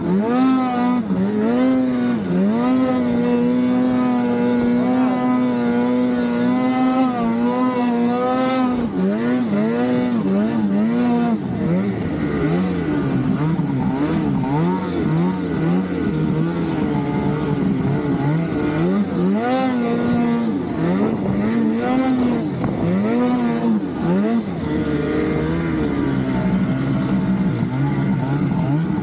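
Naturally aspirated two-stroke Polaris Khaos snowmobile engine running hard. The pitch holds steady for about the first eight seconds, then rises and falls again and again as the throttle is worked.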